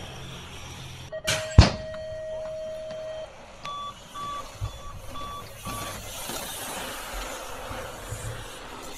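BMX starting gate: a loud metal bang about a second and a half in over a steady tone held for about two seconds, then a run of five or six short electronic beeps.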